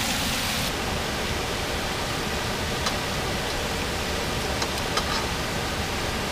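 Steady frying hiss of catfish fillets cooking in butter in a pan on a turned-down stove burner, with a couple of light clicks of a utensil against the pan.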